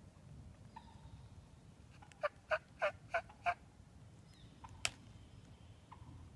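A series of five wild-turkey yelps, about three a second, followed a second and a half later by a single sharp click.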